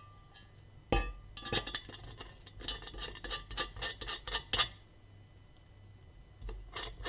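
Dremel Workstation base plate being handled and turned over, its locking bolt and nut clinking and rattling. A knock about a second in, a run of quick clinks and knocks for a few seconds, then more near the end.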